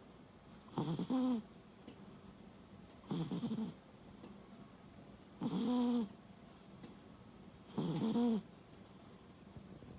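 A sleeping cat snoring: four short snores about every two and a half seconds, each with a buzzing pitched tone. A vet put the snoring down, tentatively, to small nostrils, and the cat is otherwise healthy.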